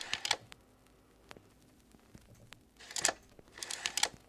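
Slide projector changing slides: short bursts of mechanical clicking and clacking, one at the start and two more about three and four seconds in.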